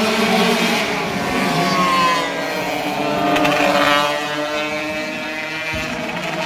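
Engines of racing longtail boats (vỏ lãi) running hard, several pitches at once. One drops in pitch as a boat goes by, a little before halfway through.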